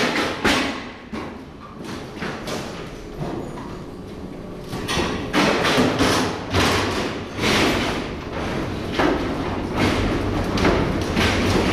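Irregular thumps and knocks of wheeled metal-framed mail containers being handled and moved beside the Mail Rail train wagons, growing busier about halfway through.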